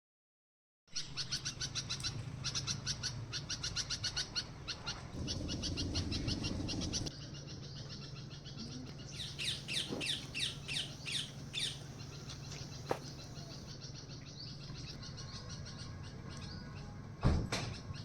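Small birds chirping in quick trains of high, repeated calls, twice in the first half and more sparsely later, over a low steady hum. A loud thump comes near the end.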